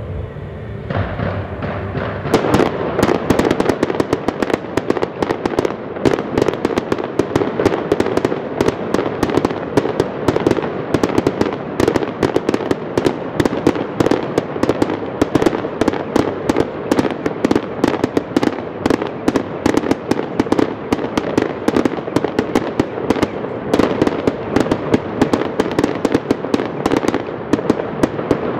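Fireworks going off in a rapid, unbroken barrage of sharp bangs and crackles, many a second. The barrage thickens about two seconds in.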